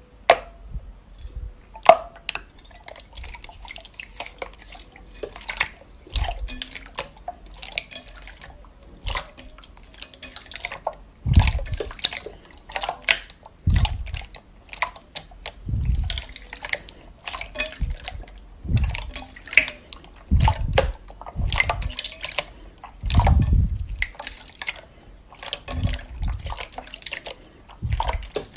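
Hands squishing and pressing a large bowl of clear, glossy slime: a steady run of irregular wet clicks and crackles, with louder, deeper squelches every couple of seconds as the palms push down.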